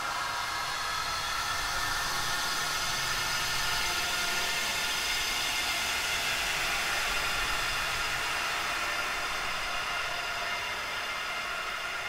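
Ghostly 'wails of the dead' sound effect: a dense, steady wash of many drawn-out, overlapping wailing tones over a hiss. It swells up over the first second or two.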